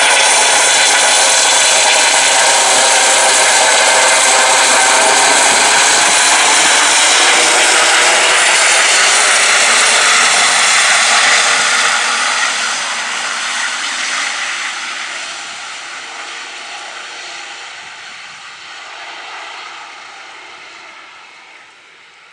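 Eurocopter EC-135 T2 helicopter, twin turboshaft engines and Fenestron ducted tail rotor, flying overhead with a loud high whine over the rotor noise. About halfway through it starts to fade steadily as it climbs away.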